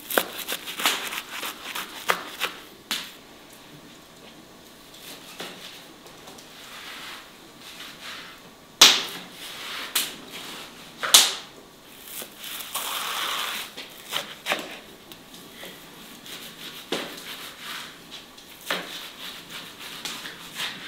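Sprouted wheat grass and its matted roots being handled on a tray, crisp rustling and crackling with scattered sharp clicks. Two loud snaps come about nine and eleven seconds in.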